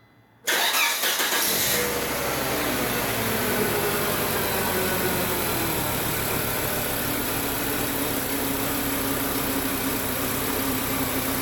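Volvo 850 T5's turbocharged five-cylinder engine starting about half a second in: it cranks briefly, catches without any throttle, and settles into a steady idle, its speed easing down slightly. With its vacuum hose leaks fixed, the engine now starts and runs instead of barely running.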